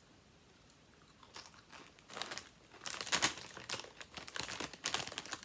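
A person chewing crunchy Doritos tortilla chips: irregular crunches begin about a second in and keep coming.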